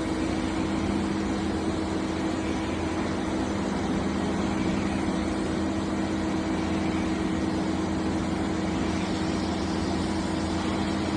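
Steady machine hum from a Toshiba BTD-130H.R22 CNC table-type boring mill running under power with no cutting, two steady low tones over an even whirring noise.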